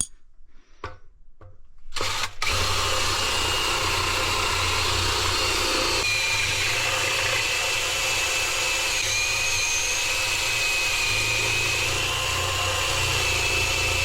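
Power drill boring a hole into a Gardall floor safe to get at its lock. It starts about two seconds in and runs steadily, with a high whine over a low hum.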